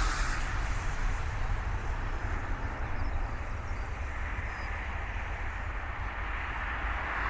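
Airbus A320-200 jet engines, a steady rushing noise with a deep rumble underneath, swelling slightly near the start and again near the end.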